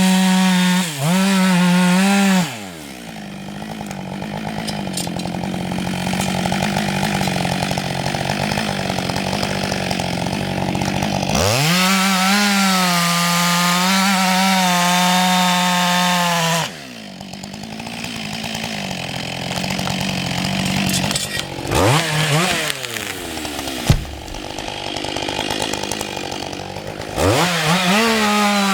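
Husqvarna 560 XP two-stroke chainsaw alternating between full throttle and idle: a short high-revving spell at the start, a longer one of about five seconds in the middle, a brief rev later, and full throttle again near the end, with the pitch wavering under load as it cuts wood. A single sharp knock comes about two-thirds of the way through during idle.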